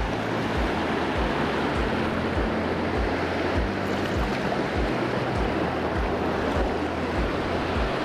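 Steady rush of water pouring over a lake spillway, with a low, even beat of background music thumping about every 0.6 seconds.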